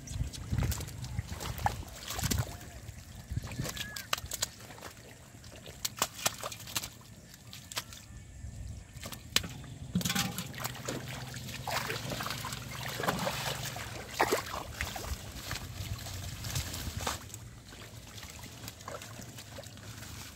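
Hands digging and groping through wet mud and shallow water, with irregular sloshing, splashing and short wet clicks.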